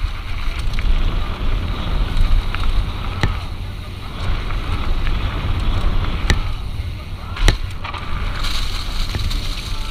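Wind rumble over a GoPro on a downhill mountain bike in motion, with the bike rattling over rough ground and a few sharp knocks from hard hits.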